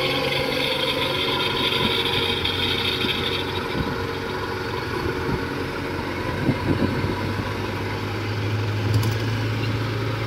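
Combine harvester's diesel engine running under load as it tows a rice cart bogged in mud. The engine note shifts about three and a half seconds in and grows deeper and heavier from about seven seconds, with a few faint knocks near the middle. The tow fails because the wheels spin in the soft ground.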